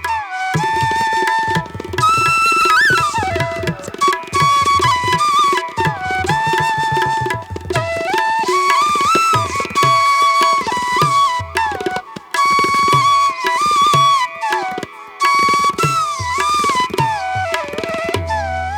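Background music in an Indian classical style: a flute melody that slides and ornaments between notes over a steady tabla rhythm.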